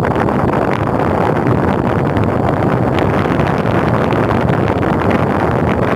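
Steady rumble and rush aboard a general cargo ship under way: the ship's engine running, mixed with wind buffeting the microphone.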